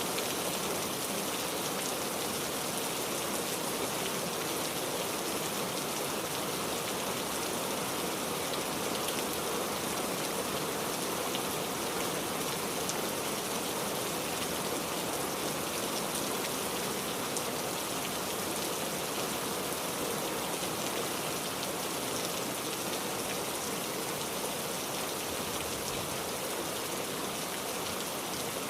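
Rain falling steadily, with many small drops pattering on a surface and no change in strength.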